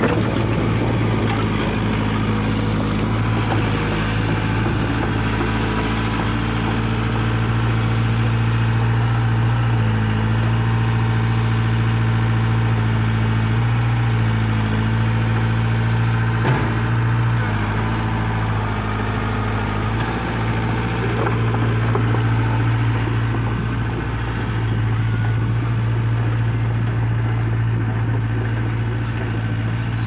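Komatsu crawler excavator's diesel engine running as the machine tracks away down a dirt slope: a steady low drone with small shifts in pitch.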